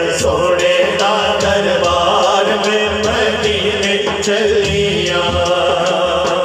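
A Punjabi naat sung through a PA system: a male voice drawing out long held notes over a chanted vocal drone, with a faint steady ticking beat.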